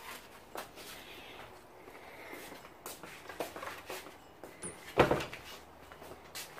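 Sandalled footsteps scuffing and clicking on a tiled floor, with one sharp, loud thump about five seconds in.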